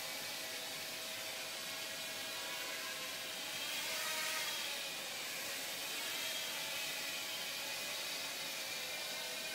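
Blade Nano QX micro quadcopter in flight: the steady whine of its four small brushed motors and propellers, the pitch wavering slightly as it manoeuvres. It grows a little louder about four seconds in.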